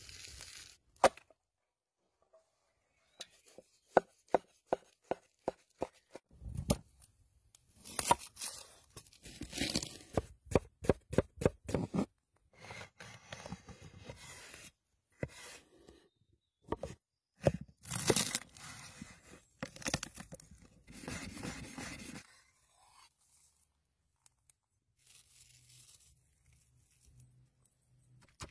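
Kitchen knife chopping and slicing vegetables, among them a red bell pepper, on a wooden cutting board. Runs of sharp chops come two to three a second, between stretches of crunchy cutting and tearing.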